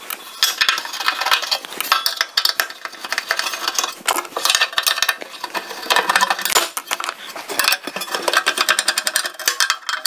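A screwdriver backing screws out of the sheet-metal cover on an RV furnace's combustion fan: quick metallic scraping and clicking that comes in bursts.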